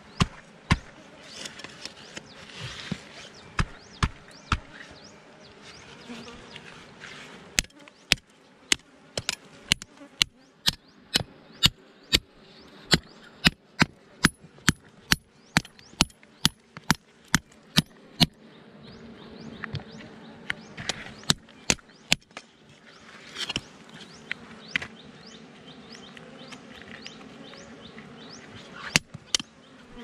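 Machete blade striking hard soil and rock in a crevice, a long run of sharp chops about two a second through the middle, over a steady buzz of bees around their nest.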